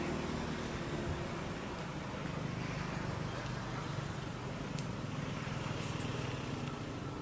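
Steady low engine-like hum with outdoor background noise, typical of a motor vehicle running. A brief high chirp sounds about six seconds in.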